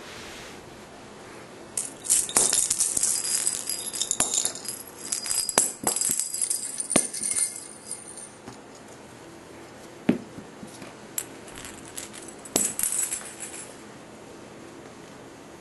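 A cat toy with a bell jingling and rattling as kittens bat it about, in bursts for several seconds, then again briefly near the end, with a few sharp knocks between.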